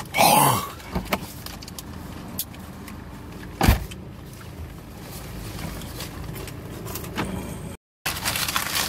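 Small handling noises inside a car, with a single sharp knock a little before halfway. Paper bag rustling near the end, after a brief dropout in the sound.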